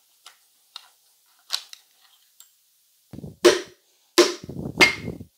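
Hammer strikes knocking a piston out of the bore of a wrecked 350 small-block Chevy: a few light taps and clinks, then from about three seconds in a run of heavy metal blows about half a second apart.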